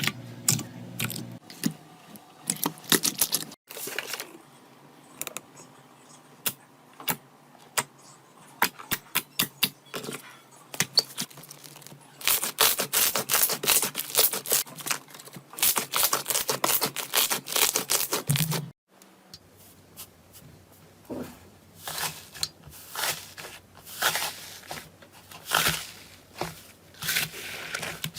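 Slime being squeezed and worked by hand, giving a run of sharp clicks and crackling pops, which thicken into dense, continuous crackling for several seconds in the middle.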